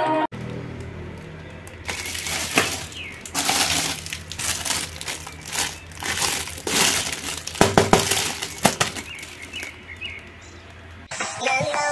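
Clear plastic packaging bags crinkling and rustling in irregular bursts as hands handle masks wrapped in them, over a faint low steady hum.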